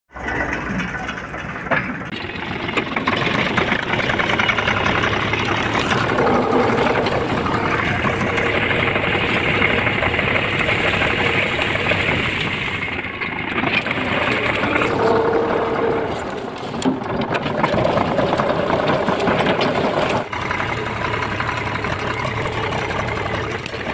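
Farm tractor's diesel engine running steadily as the tractor drives across a field, towing a steel-frame harrow.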